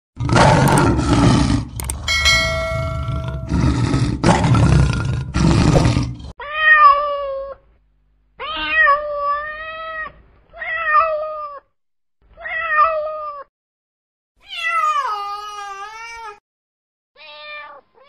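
For about the first six seconds, a run of rough, noisy growls from a lioness. After that comes a domestic cat meowing six times with short breaks between. The fifth meow slides down in pitch and the last is brief.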